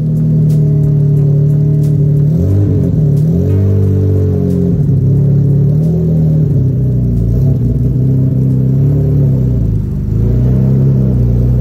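Nissan Skyline R34 GT-R V-Spec's twin-turbo RB26DETT straight-six running at idle through the exhaust, its pitch wavering unevenly, with a short rev that rises and falls about two and a half seconds in.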